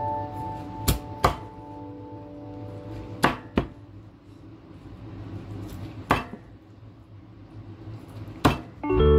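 Meat cleaver chopping through steamed chicken onto a wooden chopping block: six sharp chops, the first four in two quick pairs, the last two single and a few seconds apart.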